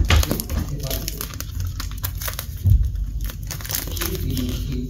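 Hands gripping and picking at a taped cardboard box, trying to pry it open by hand: crinkling and scratching of cardboard and packing tape in a string of short clicks, with a thump about two and a half seconds in.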